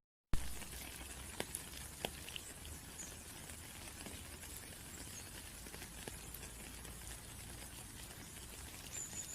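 Rain falling in a steady patter, with scattered louder single drops landing close by. The sound cuts out completely for a split second right at the start and comes back with a sharp click.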